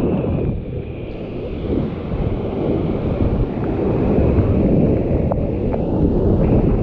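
Rushing whitewater of a steep rapid, with wind buffeting the microphone, growing louder about halfway through as the kayak drops into the foam. Two short knocks come about two-thirds of the way in.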